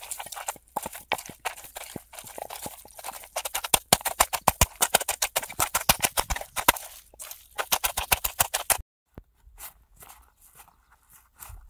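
Rapid sharp knocking, several strikes a second, from kitchen work such as chopping or pounding. It stops abruptly about nine seconds in, then resumes sparser near the end.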